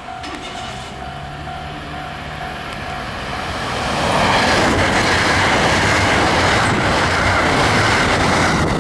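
Train running past close by. Its noise swells sharply about four seconds in and stays loud.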